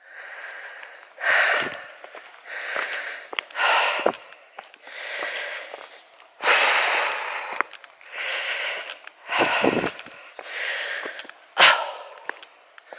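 A hiker's heavy breathing while walking: a run of about ten breaths, roughly one a second, each a short rush of air.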